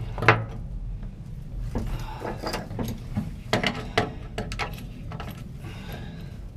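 Sharp metal knocks and clanks, one loud one just after the start and quick clusters around two and four seconds in, over a low steady hum.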